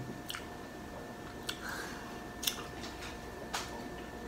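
Quiet eating sounds over a steady low hum: four short, sharp clicks about a second apart, with no talking.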